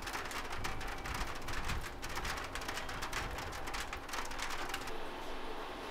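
A dense, irregular patter like rain or dripping water. The brighter top of the patter drops away about five seconds in.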